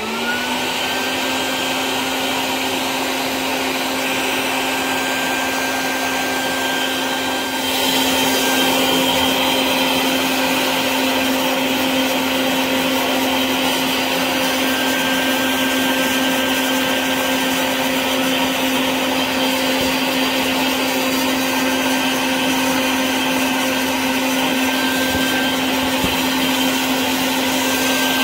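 Built-in 120 PSI air compressor of a West Marine 1200 peak amp power station running, pumping air out through its hose: a steady motor hum with a faint high whine, getting a little louder about eight seconds in.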